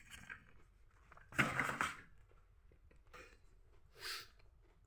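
Brief rustling handling noise from the keyboard's packaging and cable about a second in, with fainter small handling sounds near the end.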